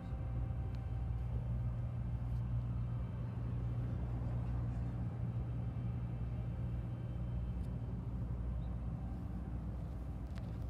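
Diesel engine of San Joaquin Valley Railroad locomotive 2405 running steadily as it pulls a freight train slowly away; a steady low drone.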